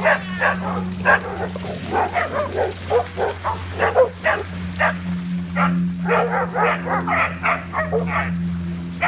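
Dogs barking and yipping in quick, repeated yelps, several a second.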